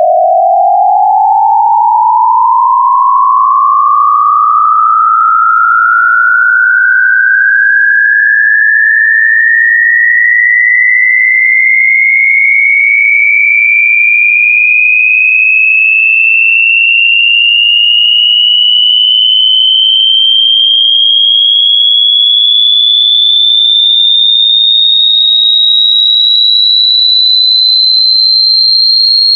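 A single loud electronic pure tone gliding slowly and smoothly upward in pitch, from a mid-range tone to a high-pitched whine. It rises quicker at first, then more gradually.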